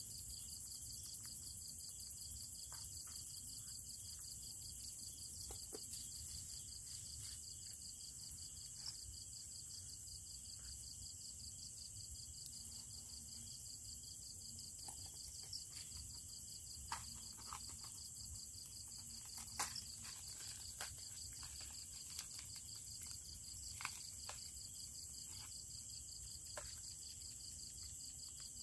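Night insect chorus: a steady, fast-pulsing cricket-like trill, with a higher layer that drops out about six seconds in. Scattered small clicks and taps sound over it.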